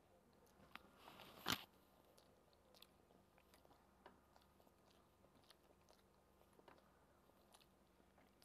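Faint chewing and mouth clicks of a person eating soft rice by hand, with one brief louder rustle and click about a second and a half in.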